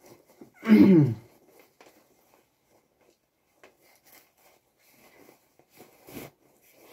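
Light rustling and crinkling of a tripod's black drawstring carry bag being worked open, with small clicks and a sharper rustle near the end as the tripod legs slide out. About a second in, a brief loud vocal sound falling in pitch.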